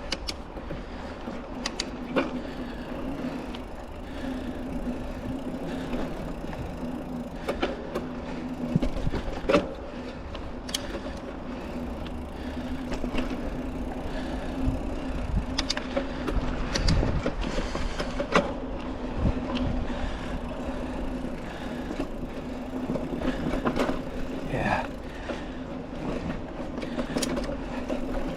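Mountain bike on tubeless tyres rolling along a dirt trail: a steady tyre hum with scattered knocks and rattles from the bike going over bumps.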